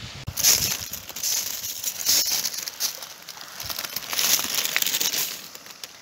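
Loose seashells crunching and crackling underfoot on a beach made entirely of shells, in several long bursts.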